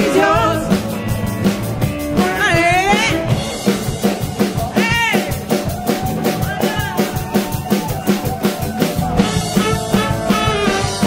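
A live band playing with a steady drum beat, saxophone and trombone, electric guitar and women singing, with a couple of sliding high notes around the middle.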